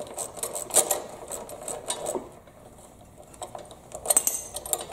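Hand ratchet clicking in short irregular runs, with light metal clinks of the tool and screws, as screws are worked loose on a Kohler Command engine's sheet-metal cover. The clicking goes quiet for about a second in the middle, then a few more clinks near the end.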